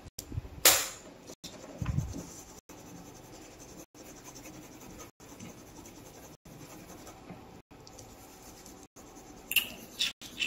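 Coloured pencil scratching and rubbing on paper, with a few sharp knocks and handling sounds about a second in and again near the end.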